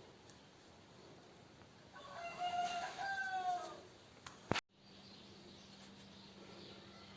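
A rooster crows once, a drawn-out call starting about two seconds in. Shortly after, a sharp click, a brief cut-out, and then a steady low hum.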